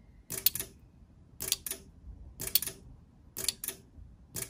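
Small 3D-printed flip-dot disc snapping over under its electromagnet, a short cluster of two or three sharp clicks about once a second, five times.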